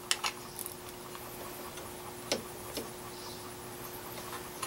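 A few light clicks and taps, two near the start and two more a little past halfway, as a metal bracket is handled and shifted in a drill-press cross-slide vise, over a faint steady hum.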